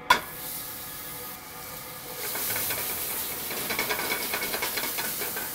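Chopped shallots and garlic hitting hot oil in a sauté pan: a sharp hiss as they drop in, then steady sizzling that grows louder and crackles from about two seconds in.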